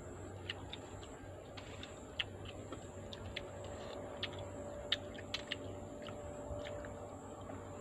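Scattered small clicks and crackles of balot eggshells being cracked and peeled by hand, about a dozen sharp ticks, the loudest about two and five seconds in, over a steady low hum.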